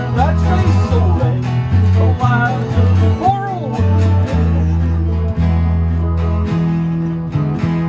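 Country-style string jam: acoustic guitars strumming together with an electric guitar played through a small amplifier and a banjo, over steady low notes that change every half second or so, with a few bent notes in the middle.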